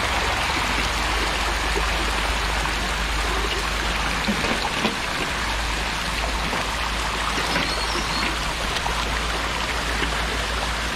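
Steady splashing and sloshing of water from a tank crowded with catfish churning at the surface, with a few sharper splashes about four to five seconds in.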